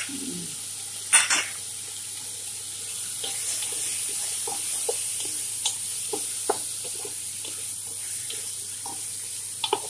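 Raw chicken pieces sizzling in oil in a frying pan, with a steady hiss, while a wooden spatula turns them, scraping and clicking against the pan; a sharper knock about a second in.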